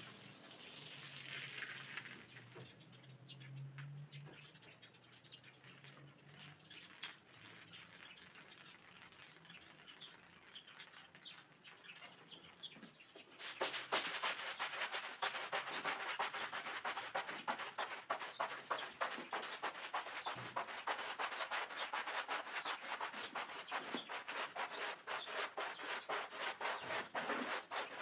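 Water from a watering-can spray head tapering off on a soapy wet rug, then a quieter stretch of faint scrapes. About halfway through, a stiff-bristled push broom starts scrubbing the foamy rug in rapid back-and-forth strokes, a wet scratching swish much louder than before.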